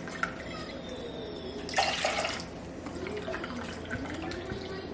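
Water running from a tap and dripping, with a louder splash about two seconds in.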